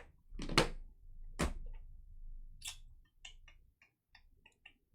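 Trading cards and plastic card cases being handled on a table: two sharp knocks in the first second and a half, a lighter one, then a run of faint light clicks.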